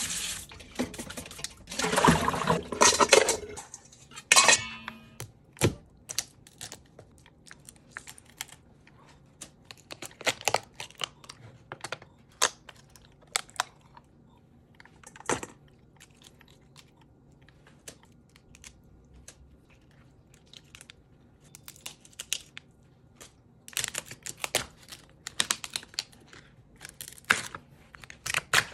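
Kitchen tap water running over crab pieces in a stainless steel bowl at the start, then a long run of scattered sharp clicks and knocks as a Dungeness crab's shell is pulled apart and cut with a chef's knife on a wooden cutting board, the knocks coming thicker near the end.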